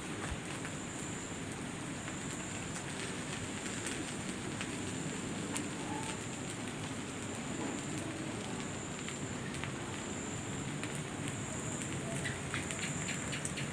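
Steady outdoor ambience: an even crackling hiss with a constant high thin tone over it, and a run of faint clicks near the end. No bell-like ringing is heard.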